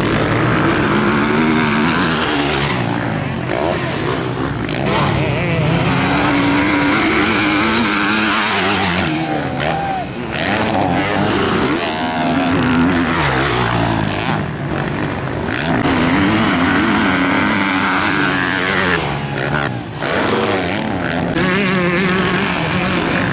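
Motocross bike engines revving hard and easing off over and over, their pitch rising and falling as riders accelerate around the dirt track, several bikes at once.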